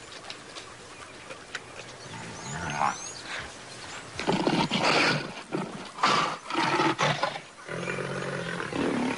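Young lions growling and snarling in several rough bursts over their kill, ending in a longer, deeper drawn-out growl.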